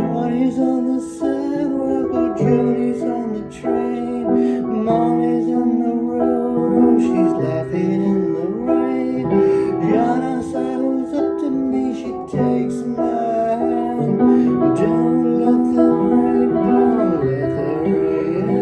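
Instrumental passage of a song: plucked guitar notes over steady held keyboard chords.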